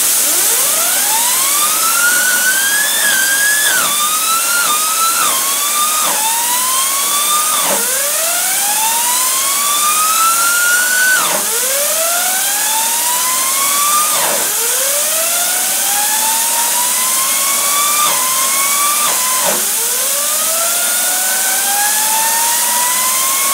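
Compressed air blasting a wheel bearing cleaned with mineral spirits: a loud steady hiss with a whine that climbs in pitch over a few seconds, then drops sharply and climbs again, many times over. The bearing keeps spinning up and falling back instead of bursting, which the owner puts down to it chattering on its race.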